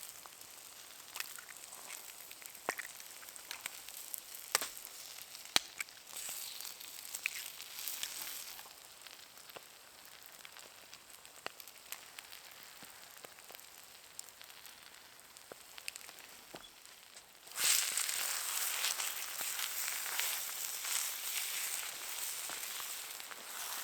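Food sizzling in a carbon steel pan over a wood campfire, with sharp crackles and pops. The sizzle swells suddenly to a much louder hiss about two-thirds of the way in.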